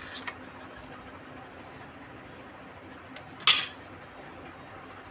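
Stainless steel spoon and dishes clinking as food is served: a few light clicks at the start, then one sharp metallic clink about three and a half seconds in, with a brief ring.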